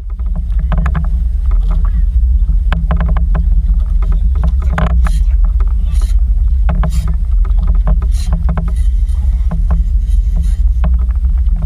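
Steady low rumble of a small outrigger fishing boat, with scattered clicks and knocks and a few brief hisses while a spinning reel is worked against a hooked fish.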